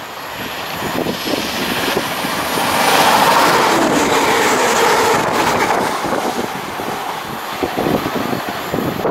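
Class 185 diesel multiple unit passing at speed without stopping: engine and wheel noise build up as it approaches, are loudest a few seconds in as it runs by close at hand, drop in pitch as it passes, then fade away.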